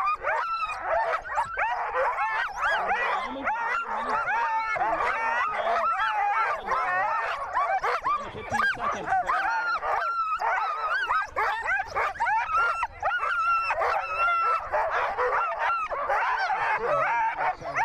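Many sled dogs barking and yelping at once, overlapping without a break: the eager noise of sled dog teams waiting at a race start.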